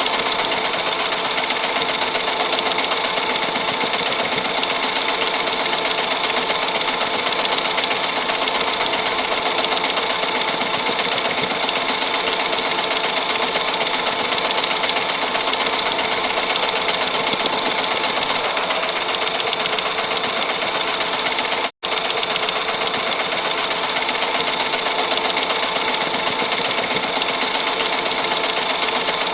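Film transport mechanism of a vintage movie camera or Super 8 projector, running with a steady, fast mechanical whir and clatter. Roughly 22 seconds in, the sound cuts out for a split second, then resumes.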